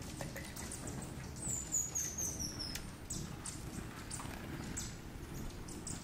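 Hummingbirds at a nectar feeder giving thin, high chips, with a quick descending run of squeaky notes about a second and a half in.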